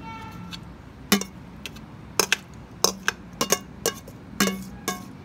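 A metal spoon clinking and tapping against a glass bowl and a stainless-steel pot as salad is scraped from the bowl into the pot. There are about ten sharp clinks at uneven intervals, starting about a second in, some ringing briefly.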